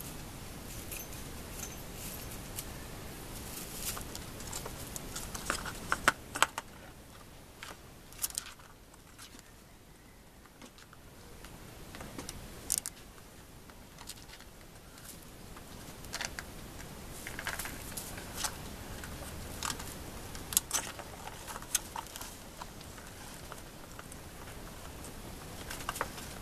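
Kittens playing in a plastic circular ball-track cat toy on straw: irregular light clicks and taps from the plastic track, with rustling straw, quieter for a couple of seconds near the middle.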